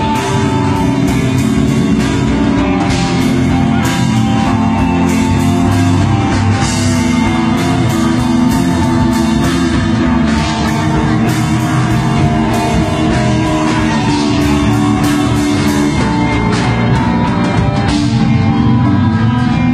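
Hardcore-metal band playing live and loud: electric guitar over a drum kit with frequent cymbal hits.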